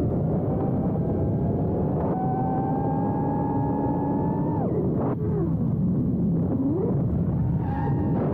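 FPV quadcopter's motors and propellers whining, heard through the drone's onboard camera along with rushing wind. The whine climbs slowly, drops sharply a little under halfway as the throttle is cut, swoops down and back up, then climbs again near the end.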